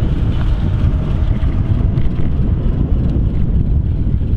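Wind buffeting the microphone of an electric fat bike ridden at full throttle, heard as a loud, steady, rough low rumble.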